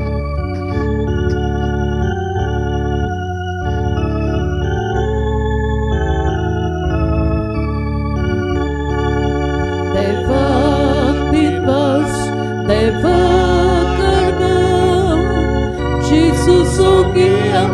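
Organ playing a hymn in slow, sustained chords; about ten seconds in, a voice comes in singing over it.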